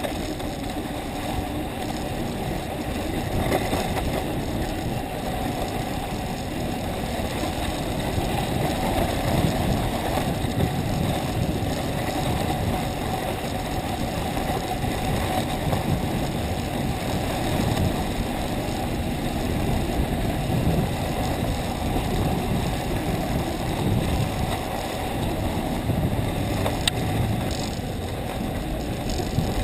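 Steady rumble of a ski bike's runners sliding over packed, groomed snow while it is towed up a T-bar lift, mixed with wind on the helmet-mounted camera.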